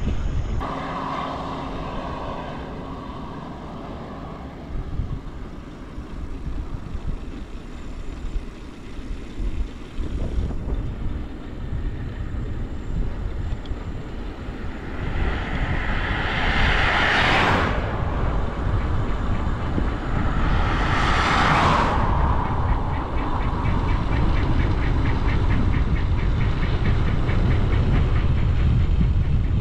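Wind rumbling on the microphone of a bicycle-mounted camera riding along a highway. About halfway through, two vehicles pass close by about four seconds apart, each one's tyre and engine noise building up and then cutting off sharply.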